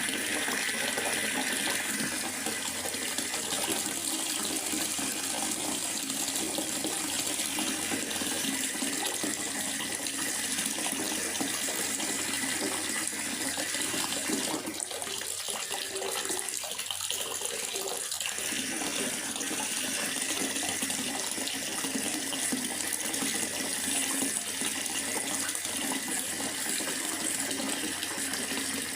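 Steady rain falling in a forest, an even hiss of water that thins briefly about halfway through.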